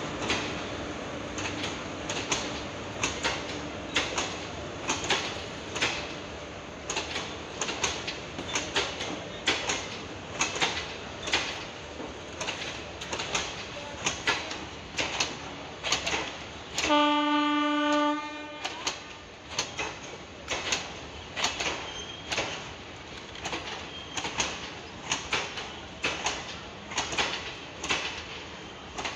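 Indian Railways passenger coaches rolling past, their wheels clacking in a steady rhythm over the rail joints. About seventeen seconds in, a train horn sounds one steady note for about a second and a half, the loudest sound here.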